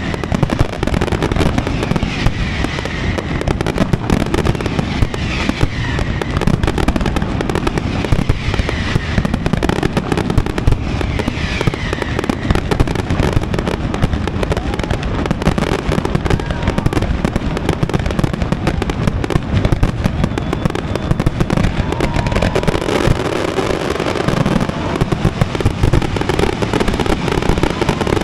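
Aerial fireworks display by Pirotecnia Valenciana: a dense, continuous barrage of bangs and crackling. In the first half, whistling tones glide in pitch.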